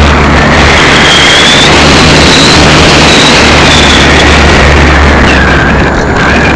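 Electric motor and propeller of a 2.5 m RC glider running under power, heard through its onboard camera's microphone with heavy wind rush. A high whine wavers in pitch and dips lower near the end as the plane banks.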